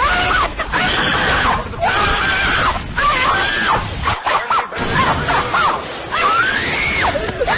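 High-pitched screaming voice in long rising and falling cries over a loud, harsh, noisy backing, as a meme sound effect.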